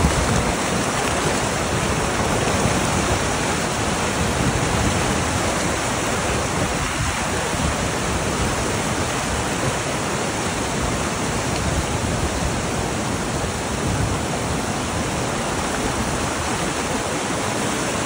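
Shallow river rapids: white water rushing and churning over flat rocks, a loud, steady, unbroken rush.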